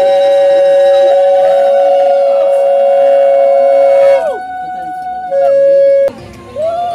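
Two conch shells (shankha) blown together in long, steady notes at two different pitches, both bending down and dying away about four seconds in. After a short gap, one sounds again briefly, and a new note begins near the end. This is the ritual conch blowing of a Bengali wedding rite.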